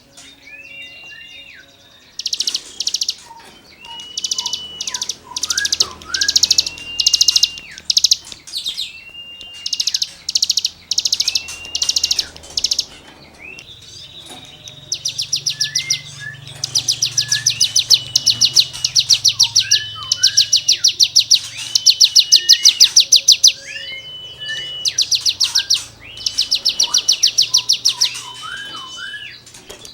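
A cigun songbird singing in rapid bursts: fast trains of high, rasping notes about a second long, each answered by a short, clear whistle with a few lower chirps. About halfway through, the bursts run almost without a break.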